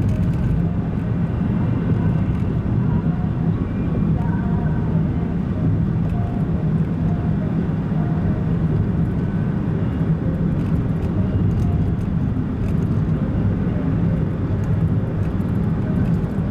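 Steady engine and road noise of a car driving, heard from inside the car.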